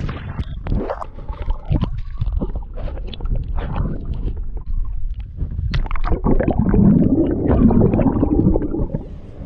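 Muffled underwater sound from a camera held under shallow water: gurgling and sloshing with many scattered small clicks and knocks, swelling into a louder wavering gurgle about seven seconds in.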